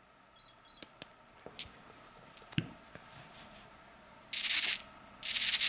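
Light clicks and handling as the power connector is plugged in, then about four seconds in a small hobby RC servo buzzes in two short bursts as its motor and gears swing the output arm, driven through a servo stretcher.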